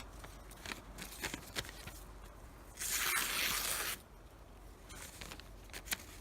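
Freshly sharpened 8670M steel knife blade slicing through thin phone book paper: one hissing cut lasting about a second, about three seconds in, with light paper rustle and a few small ticks around it.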